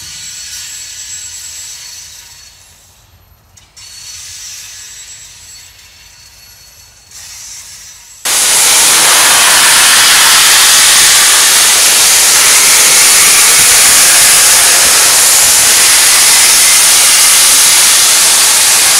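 Faint background sound with a few steady high tones, then about eight seconds in a sudden, loud, steady hiss of steam blowing from Union Pacific Big Boy 4014, a 4-8-8-4 articulated steam locomotive.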